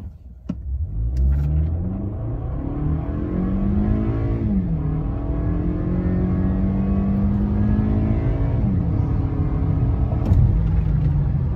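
2019 Toyota Camry L's 2.5-litre four-cylinder engine accelerating hard from a standstill, heard from inside the cabin. Its pitch climbs and drops back at two upshifts of the eight-speed automatic, about four and a half and eight and a half seconds in.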